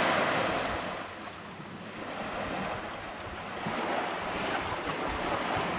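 Small waves washing up onto a sandy beach and drawing back. The wash is loudest at the start, fades, then swells again about four seconds in.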